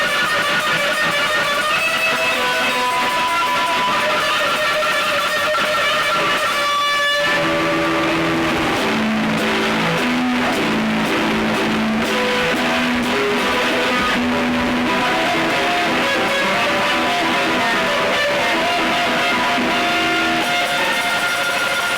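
Drone/noise music: a dense, steady wall of held tones. About seven seconds in it shifts to a lower line of held notes that step from one pitch to the next.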